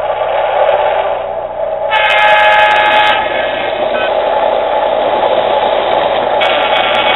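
Electronic train sound effects from a toy locomotive's speaker: a steady running rumble, with a horn sounding for about a second starting two seconds in, and again near the end.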